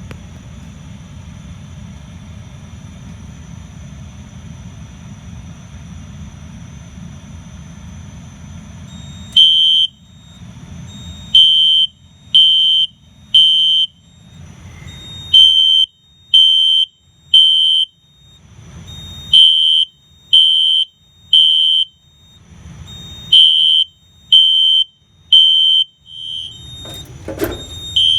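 A steady low hum for about the first nine seconds. Then a System Sensor SpectrAlert Classic fire alarm horn starts sounding in the code-3 temporal pattern: three loud, high-pitched beeps, a pause, repeating. This is the alarm system going off after canned test smoke was sprayed into the smoke detector.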